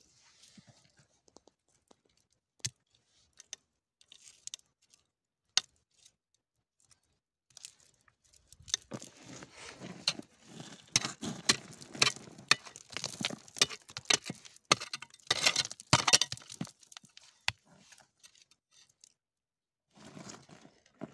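Gritty scraping and crunching of gravelly clay being dug at to free a crystal, with small stones clicking. A few separate clicks come first, then several seconds of dense scraping from about eight seconds in, and a short burst near the end.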